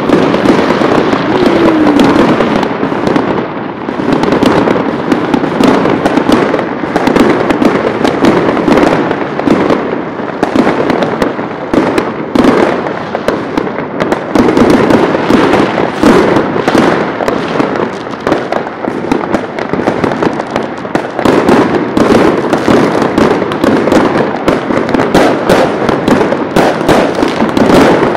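Many fireworks and firecrackers going off at once: a dense, unbroken barrage of overlapping bangs and crackles.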